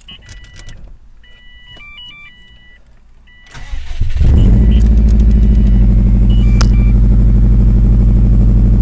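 A 2005 Subaru Impreza WRX STI's turbocharged 2.5-litre flat-four cranks over and catches about four seconds in, then idles steadily and loud. Before the start there are a few short electronic beeps.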